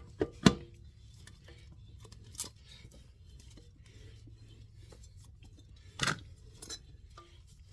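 A few scattered, sharp clinks and knocks over a faint steady low hum. The loudest comes right at the start, with others about two and a half seconds in, around six seconds, and just after.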